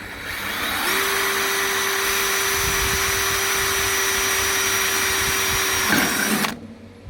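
Electric drill boring a hole through a metal connector into a metal beam, running at a steady whine for about six seconds and then stopping.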